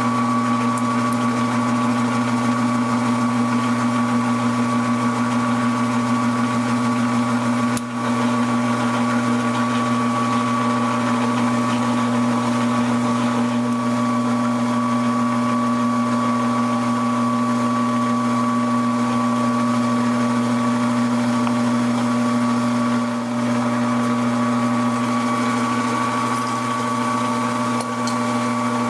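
Grizzly gear-head metal lathe running with its spindle turning a rifle barrel blank, geared for cutting 12 threads per inch: a steady motor hum with a constant gear whine, dipping briefly about eight seconds in.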